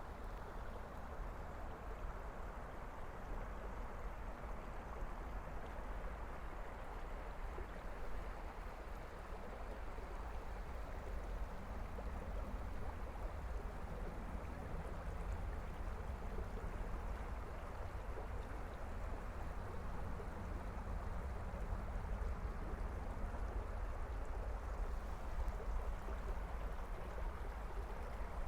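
Steady rushing of flowing creek water, even throughout, with a low rumble underneath.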